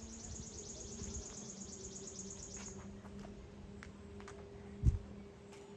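Insect chirping in a rapid, high-pitched pulsing trill through the first few seconds, over a faint low steady hum. A single dull thump comes about five seconds in.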